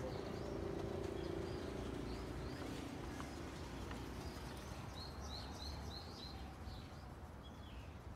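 Outdoor ambience with small birds chirping now and then, including a quick run of about five chirps around five seconds in, over a steady low background hum that fades after the first few seconds.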